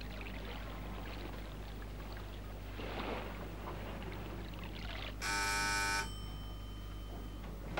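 Low, steady hum and faint hiss; about five seconds in, an electric doorbell buzzes once for just under a second, with one high tone lingering faintly afterwards.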